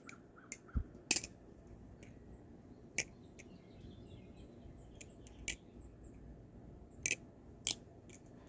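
Krake Raken V3 balisong (butterfly knife) being flipped, its handles and latch clicking together in sharp metallic clicks, about eight of them at uneven intervals with quiet between; the pivots are freshly oiled with Carbon Honey.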